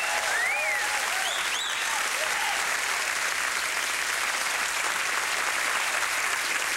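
Studio audience applauding steadily, with a few voices calling out in the first couple of seconds.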